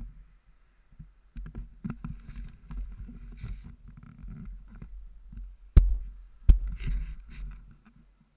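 Handling noise from a jostled action camera: low rumbling and scattered knocks, with two sharp, heavy thumps a little after halfway as the camera and bicycle end up on the ground.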